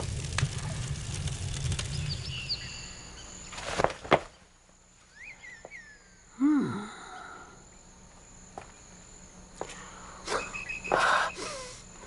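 A low steady rumble with two sharp knocks about four seconds in, then quiet outdoor ambience with a few short chirps. Around six and a half seconds a man gives a short grunt, and near the end comes the heavy breathing of a man climbing over rocks.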